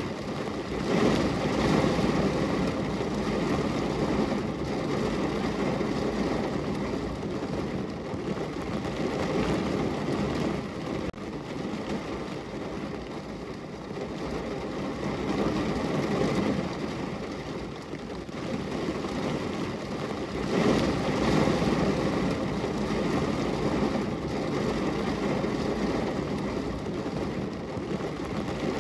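Steady rain on a window. A low rushing swells and eases every several seconds, strongest about a second in and again about twenty seconds in.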